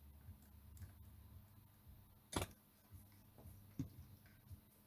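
A few faint clicks and taps from tools being handled at a soldering bench, the loudest about two and a half seconds in, over a low steady hum.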